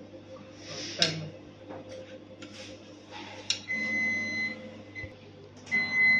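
Two electronic beeps from a UV inkjet printer's control unit, each under a second and about two seconds apart, over a steady low machine hum. Clicks and knocks from parts being handled on the print-head carriage, the loudest about a second in.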